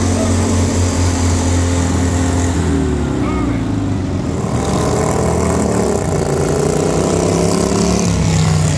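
Racing riding lawn mower engines running hard as the mowers pass close by. About three seconds in the engine pitch drops, then several engine notes overlap and rise as more mowers go past.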